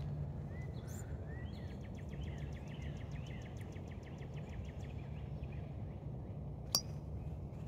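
Faint birds chirping over a steady low background hum. Near the end comes one sharp click as a driver strikes a golf ball.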